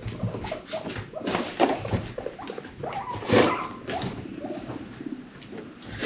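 Guinea pigs making a string of short, low cooing calls among scratchy clicks, with one louder call about three seconds in.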